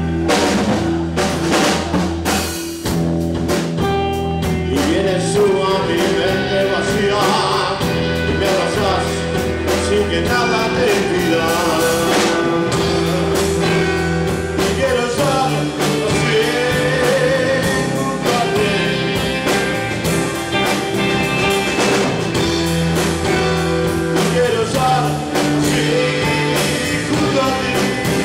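Live rock band playing: electric guitars and drum kit, with a bass line and a melodic lead line over the top.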